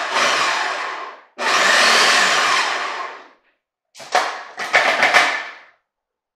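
Small food processor motor whirring in two pulses, each winding down, as the blade cuts cold butter into a flour mixture. About four seconds in, a short clatter of plastic clicks and knocks as the lid and feed tube are twisted off the bowl.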